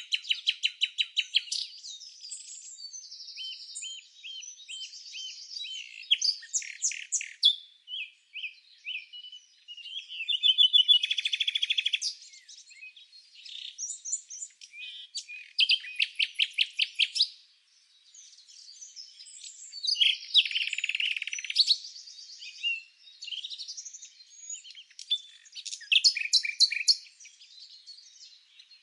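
Songbirds chirping and singing: a string of overlapping high-pitched phrases, quick trills and rapidly repeated notes with short pauses between.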